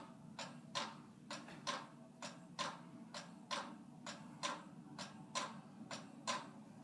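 44-inch Monte Carlo ceiling fan running on low speed with a steady low hum and sharp, evenly spaced clicking about twice a second. The fan is very noisy, a fault the owner can't pin down.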